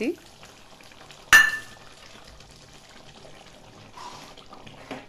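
A single sharp metallic clink of a steel kitchen utensil about a second in, ringing briefly. Around it a pan of tomato pickle simmers faintly, and a ladle starts stirring it near the end.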